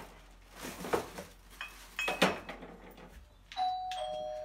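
A few light clicks and knocks, then near the end a two-note doorbell chime, a high note stepping down to a lower held note.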